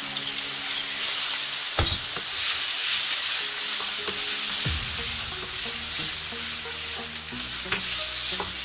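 Marinated chicken strips sizzling in hot oil in a nonstick frying pan, the sizzle swelling about a second in as the chicken goes in. A spatula stirs the pieces around, with two knocks against the pan.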